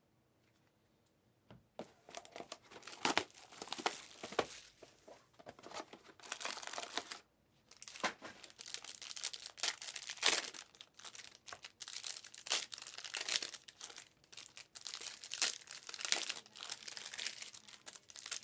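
Packs of basketball trading cards being torn open and their wrappers crinkled, an irregular run of crackling, tearing and rustling that starts after a short quiet moment.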